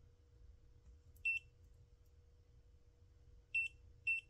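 Leolov MT2202 touchscreen multimeter's continuity beeper in auto mode giving a few short, high-pitched beeps at uneven intervals as its probes touch a 10 ohm power resistor. The beeps break off and restart as the probes make and lose contact, which the owner puts down to dirty meter leads.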